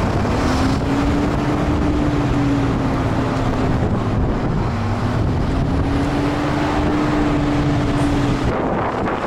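A moving bus heard from its side window: wind rushing past the microphone over steady road and engine noise. A faint hum rises slightly in pitch and holds twice, first just after the start and again about five and a half seconds in.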